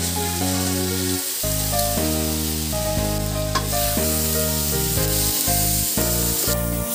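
Washed rice sizzling in hot oil in a wok as it is poured in and stirred with a wooden spatula, a steady frying hiss. Background music with sustained chords plays over it.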